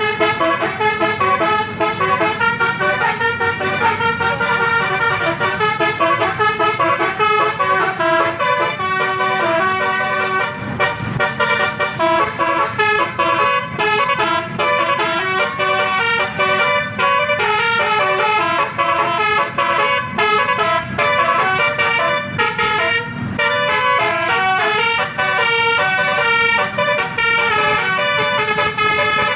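Basuri (telolet) multi-tone musical air horn on a bus, sounded continuously and playing a rapid melody of changing notes, with only brief breaks.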